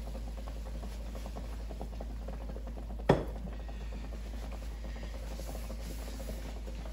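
Red wine and veal stock braising liquid starting to simmer in a cast iron braiser, a faint steady bubbling. About three seconds in comes one sharp metal clank with a brief ring, the emptied stainless saucepan being set down.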